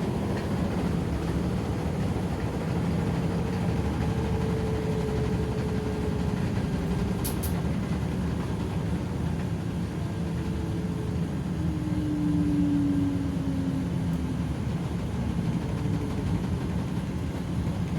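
Washing machine spin cycle winding down: the drum runs with a steady rumble while a faint whine falls in pitch as the spin slows. The machine is vibrating from an unbalanced load of towels. A brief click about 7 seconds in.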